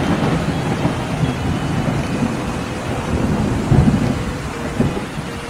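Thunderstorm: a steady hiss of rain with low rumbles of thunder, swelling most strongly a little under four seconds in.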